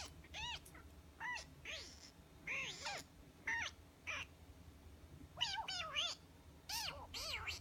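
A person making high-pitched, mouse-like squeaks to tease a cat: about a dozen short calls, each rising then falling in pitch, some coming in quick runs of two or three.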